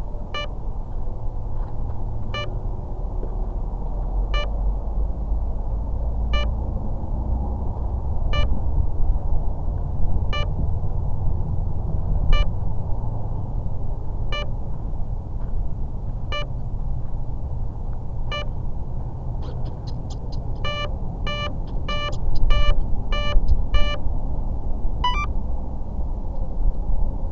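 Short electronic beeps repeating about every two seconds, then a quick run of beeps near the end, typical of RC model electronics waiting to arm. Under them runs a steady low rumble of wind on the microphone.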